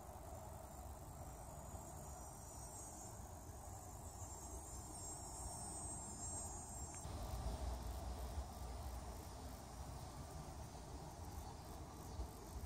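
Summer insects trilling steadily at a high pitch, strongest about halfway through, over a low rumble.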